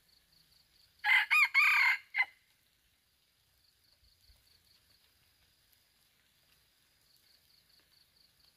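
A red junglefowl rooster crows once about a second in: a short crow of a few quick syllables, lasting just over a second and ending abruptly. A faint, pulsing high insect trill runs underneath.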